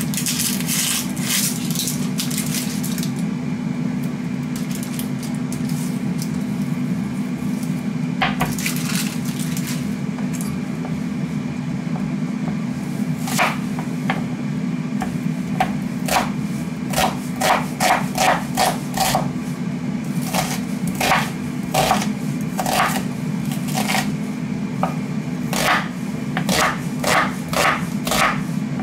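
An onion being peeled, its dry skin rustling, then chopped with a kitchen knife on a wooden cutting board: a run of sharp knocks starting about halfway through and coming quicker near the end. An air fryer's fan hums steadily underneath.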